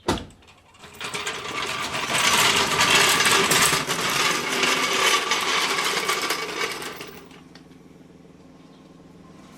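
A click, then loud, dense mechanical rattling and clattering for about six seconds, which then drops away to a low steady hum.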